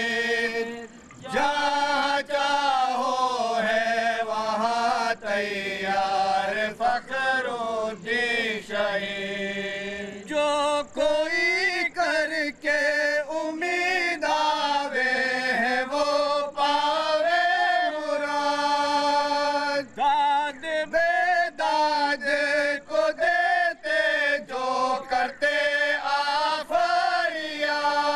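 Group of men chanting a devotional recitation together, voices unaccompanied, the melody wavering and ornamented, with a short break about a second in.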